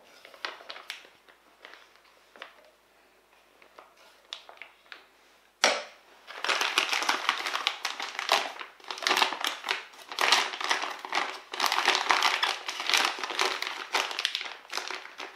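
Thin plastic piping bag crinkling as it is handled, gathered and twisted shut. A sharp rustle starts it about six seconds in, then a dense run of crinkles to the end, after only faint scattered clicks before.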